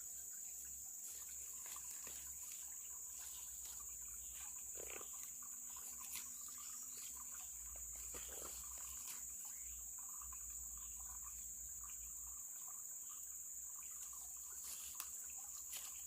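Steady high-pitched drone of insects, unbroken throughout, over a faint low rumble and a few small ticks.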